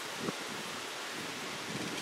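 Wind blowing across the microphone: a steady rushing noise, with leaves rustling.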